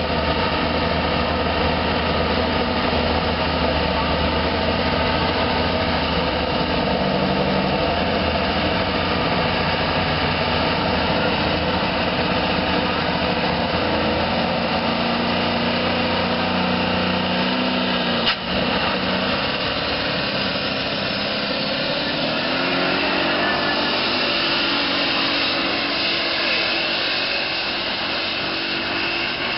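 Super stock pulling tractor's turbocharged diesel engine running with a steady high whine, then its note climbing in pitch as it takes off pulling the sled near the end.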